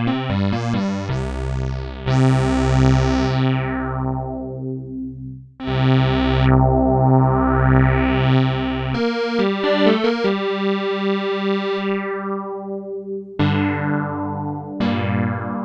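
Crumar Stratus analog synthesizer played in held chords with a regular pulsing wobble. The filter sweeps the tone bright and back down twice, then a new chord is held, and near the end shorter chords die away quickly.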